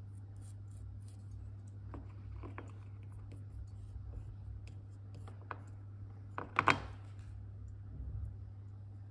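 A thin wooden stick scraping and tapping on a taped crack in an earthenware vase as it works clay-powder and urushi lacquer paste into the crack. A few faint scratches, then a short cluster of sharper clicks about two-thirds of the way through, over a steady low hum.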